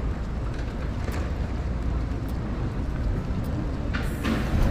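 Steady low rumble of a hand-pulled rickshaw rolling along a paved street, with a brief loud rustle about four seconds in.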